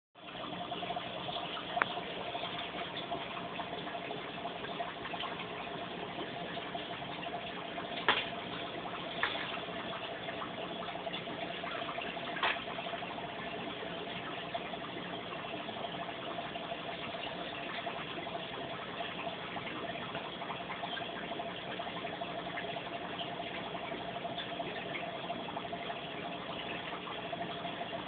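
A steady hiss with a faint hum, broken by a few soft clicks about 2, 8, 9 and 12 seconds in.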